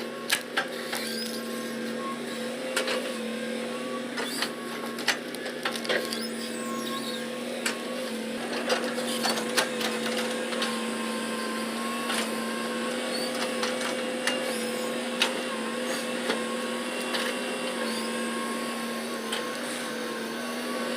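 Hitachi Zaxis 200 excavator running steadily with a constant engine and hydraulic hum, while scattered knocks and clatter come from the bucket sweeping up leftover wood scraps.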